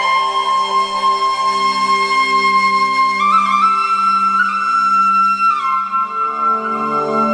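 Background music: a slow melody of long held notes over an accompaniment that pulses about twice a second.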